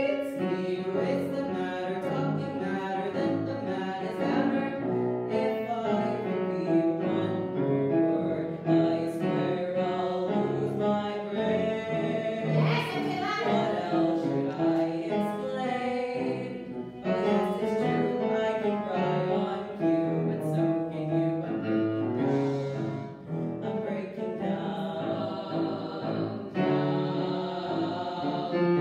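A solo voice singing a musical-theatre song with grand piano accompaniment, with a short break in the line about two-thirds of the way through.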